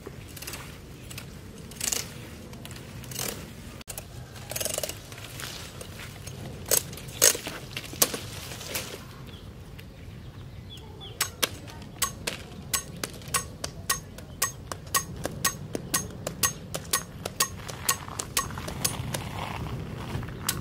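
Hammer striking metal at a steady pace of about two blows a second, each blow ringing, starting about halfway through; before that, a few scattered knocks and scrapes.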